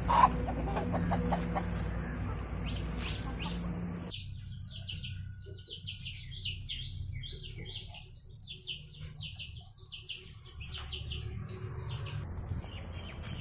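Hens clucking for the first few seconds. Then an abrupt change to young chicks peeping: rapid high-pitched peeps, several a second.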